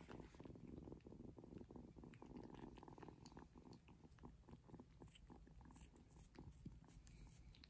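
Young kittens purring faintly while they suckle on a person's fingers, with small soft sucking clicks throughout.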